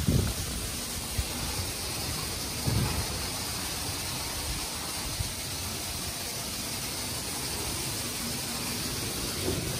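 Istobal M'NEX 22 rollover car wash running: a steady hiss of water spray from the gantry over the car, with a low thump about three seconds in.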